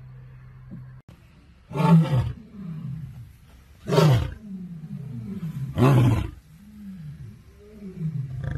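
Lioness roaring at the tail end of a roaring bout: three loud roars about two seconds apart, each followed by a series of shorter, quieter grunts that carry on after the last roar.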